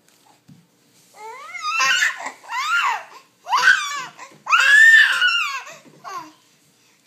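Baby squealing happily: a string of about five loud, very high-pitched shrieks, each rising and then falling in pitch.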